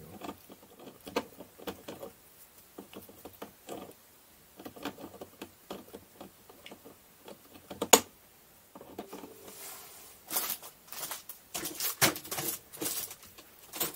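A teething Chihuahua–Jack Russell mix puppy gnawing on a plastic pet carrier: irregular small clicks and scrapes of teeth on plastic, with one sharp loud click about eight seconds in and a busier run of clicks near the end.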